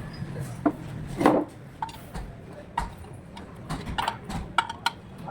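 Scattered metallic clinks and knocks of hand tools and engine parts being picked up and set down during an engine overhaul, a few of them ringing briefly, over a low steady hum.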